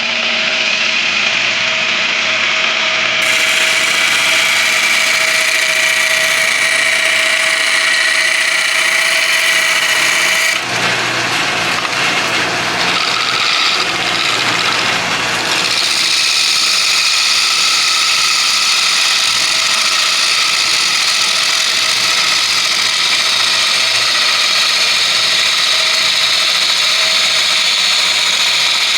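Wood lathe running while a turning gouge cuts into the spinning bowl blank, hollowing it out: a steady motor whine under the hiss and scrape of the tool on wood. The tone changes abruptly a few times.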